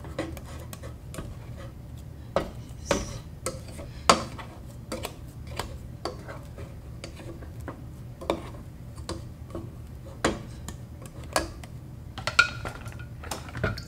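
A plastic spatula scraping and knocking against the inside of a stainless steel saucepan as a thick pounded yam dough is scraped down and turned. The strokes are irregular, with the sharpest knock about four seconds in, over a low steady hum.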